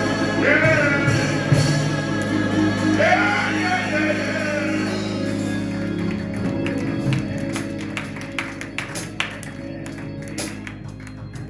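Gospel music from a church band: sustained keyboard-organ chords under a singing voice. In the second half it grows quieter and thins out to short drum or cymbal taps.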